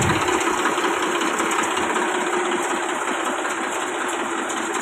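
Massey Ferguson 1035 DI tractor's three-cylinder diesel engine idling steadily, with a fast even diesel rattle.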